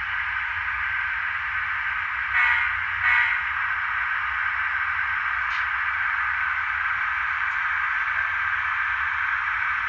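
HO-scale Atlas Genset model locomotive running past on the track with a steady whirring hiss. Two short, loud pitched blasts come about two and a half and three seconds in.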